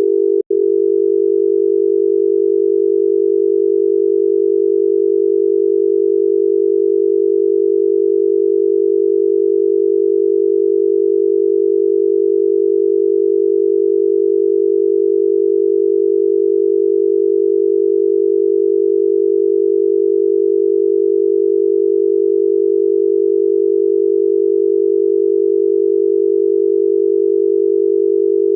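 Thailand's obsolete special dial tone: a low 400 Hz telephone tone pulsed rapidly 50 times a second. It breaks once, briefly, just after the start, then holds continuously. The tone tells the caller that the exchange is ready for dialling and that special conditions apply to the line.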